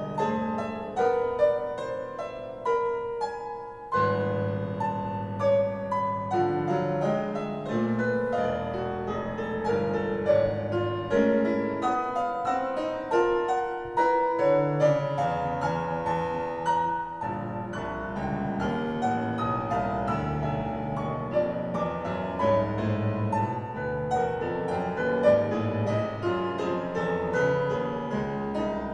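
Piano music played back over a sound system with subwoofers: a continuous flow of notes over sustained bass notes.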